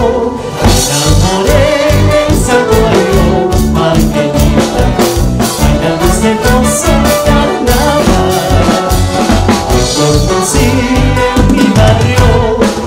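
Live band music: a Peruvian carnaval marqueño played by saxophones, violin, guitars, bass and drum kit, with a steady, quick dance beat.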